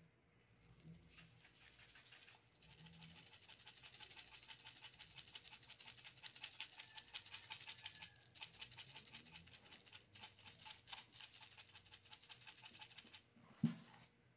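Black pepper being dispensed from its jar into a bowl: a fast, dense dry rattling, faint, with short pauses about two, eight and ten seconds in. A single sharp knock near the end.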